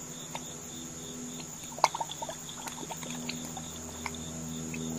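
Crickets chirping steadily, about four pulses a second, over a low steady hum, with a cluster of sharp clicks and taps about two seconds in as a bottle of Texas Pete hot sauce is handled and poured over a metal bowl.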